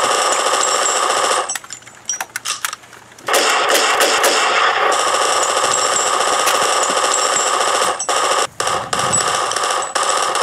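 Rapid automatic machine-gun fire, a dubbed movie-style sound effect, firing continuously. About a second and a half in, it breaks off for nearly two seconds, with only a few separate shots. Near the end it stops briefly twice.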